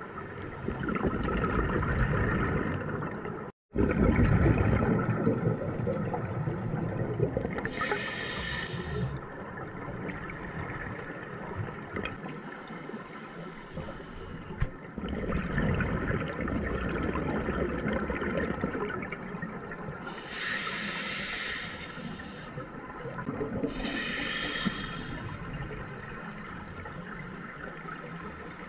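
Scuba regulator breathing underwater: a low rumbling gurgle of exhaled bubbles, broken three times by a short high hiss of inhalation through the regulator. The sound cuts out completely for an instant about three and a half seconds in.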